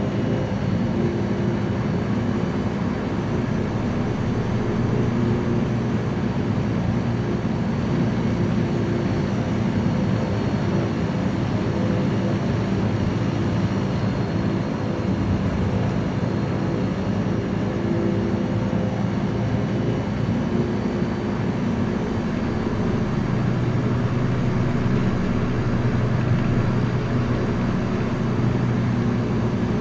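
Small light aircraft's piston engine and propeller running steadily in cruise flight, a constant engine note with layered tones over a rushing noise.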